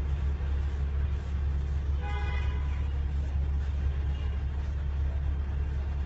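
A short vehicle horn toot about two seconds in, over a steady low engine drone.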